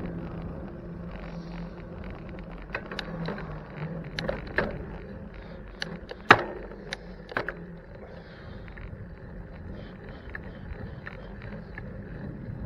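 Street traffic with a steady low hum that fades out past the middle, and a handful of sharp clicks and knocks in the middle, the loudest about six seconds in.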